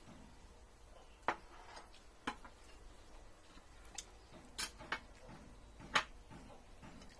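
Spoons and forks clinking against ceramic bowls during a meal: about six sharp, irregular clicks spread over a few seconds.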